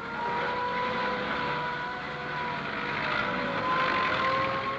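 Fire engine siren wailing, its pitch climbing slowly, over the noise of the truck's engine.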